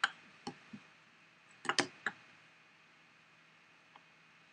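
Light taps and clicks of drafting tools (an aluminium ruler and a plastic drafting triangle) being handled and set against each other on the paper-covered desk. There is a single tap at once, two softer ones within the first second, and a quick cluster of three a little under two seconds in.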